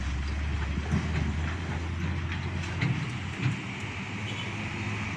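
Heavy diesel vehicle passing slowly, a steady low engine drone with a few sharp knocks, the first about a second in and two more near three seconds in.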